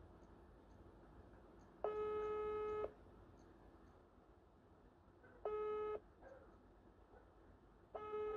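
WhatsApp voice-call ringback tone: a steady beep of one pitch with overtones, sounding three times. The first lasts about a second, a couple of seconds in; a shorter one comes around five and a half seconds and another near the end. It is the outgoing call ringing, not yet answered.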